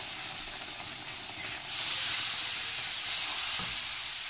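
Sugar syrup poured onto flour roasted in hot oil, hissing and sizzling with steam in the pan. The hiss grows louder a little under two seconds in.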